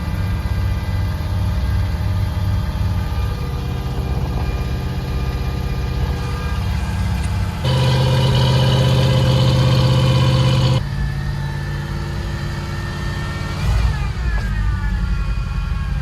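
1986 Jeep Grand Wagoneer's AMC 360 V8 idling after a cold start, with a whine from the power steering, which is low on fluid. It runs louder for about three seconds in the middle, and a brief glide in pitch comes near the end.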